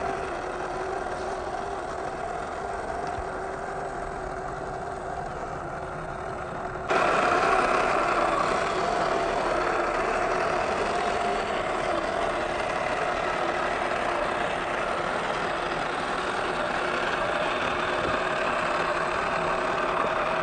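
WPL C24 RC truck's electric drive motor and gearbox whining at a fairly steady pitch while it drives. About seven seconds in, the sound jumps suddenly louder and brighter.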